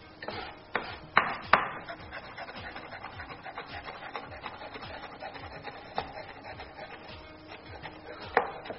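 Kitchen knife rapidly rough-chopping green chillies on a wooden cutting board: a quick, steady run of light taps with a few harder knocks, the loudest a little over a second in.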